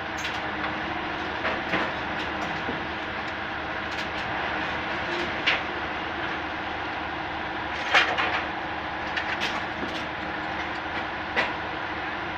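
Railway track-repair machinery running steadily, with sharp metallic clanks and knocks every second or two as rails are handled; the loudest bang comes about two-thirds of the way in.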